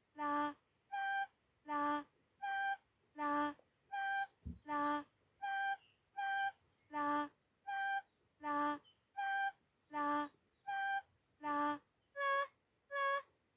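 A simple melody of short, evenly spaced flute-like notes, about four notes every three seconds, stepping between a few pitches. It is the song of a made-up bird character.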